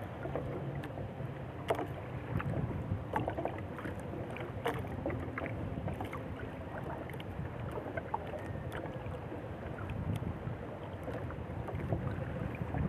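Water sloshing against the hull of a small fishing boat at sea, with wind on the microphone and scattered light knocks and clicks.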